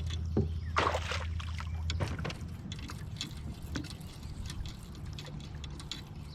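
A splash and dribbling of water about a second in, over a low steady hum that stops about two seconds in, followed by scattered small ticks.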